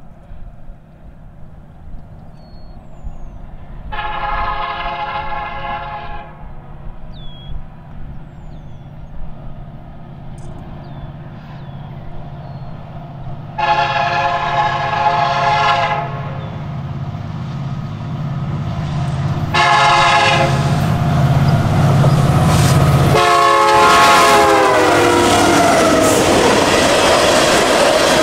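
Approaching diesel locomotive sounding its multi-tone horn in the grade-crossing pattern: long, long, short, long, the last blast dropping in pitch as the locomotive passes. The engine rumble grows under the horn, then the train's wheels clatter along the rails.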